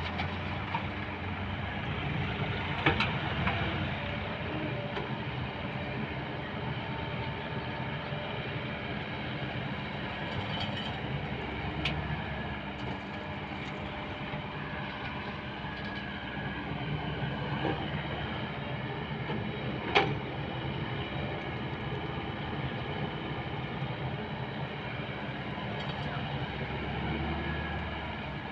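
Excavator's diesel engine running steadily under work, with a few sharp knocks, the loudest about twenty seconds in.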